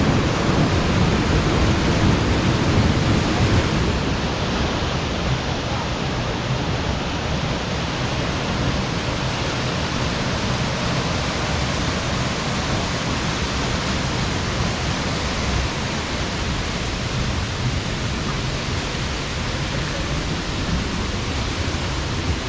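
Meenmutty waterfall's falling water rushing in a steady, even hiss, a little softer after about four seconds.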